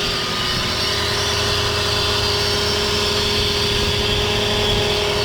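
Lexus LS460's V8 engine idling with a steady hum and a held tone from the serpentine belt drive at the front of the engine. The owner puts this noise down to worn belt tensioner and idler pulley bearings.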